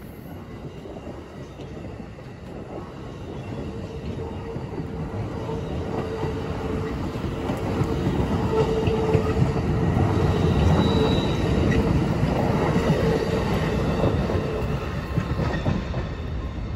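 Amtrak passenger cars rolling past on the rails, their wheels rumbling and clattering and growing louder toward the middle, with a faint steady wheel squeal through the middle, then easing as the last car goes by.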